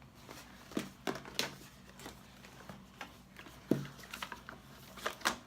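Camera packaging being handled: irregular small clicks, taps and rustles from a cardboard box and its contents being opened and sorted, with one sharper knock a little under four seconds in.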